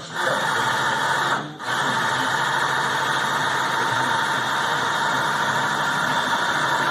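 A-26 Invader flap drive motor running steadily as it drives the newly installed flaps through their travel during a post-installation test. The sound drops out briefly about a second and a half in, then resumes.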